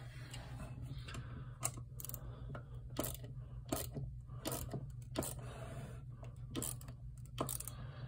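Ratcheting bit extender on a Leatherman Curl multitool clicking as a screw is driven into a wooden board by hand: sharp, separate clicks roughly every half second to a second, coming unevenly with the turning strokes.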